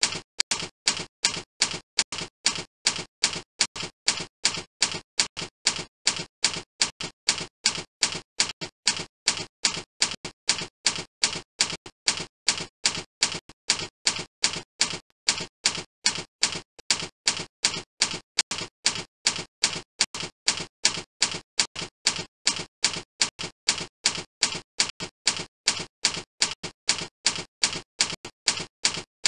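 Typing sound effect: an even run of sharp, dry clicks, about two to three a second, keeping time with text being typed out on screen.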